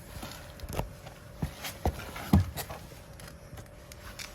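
A string of short clicks and knocks from handling things at close range, about eight in all, the loudest a dull knock about two and a half seconds in.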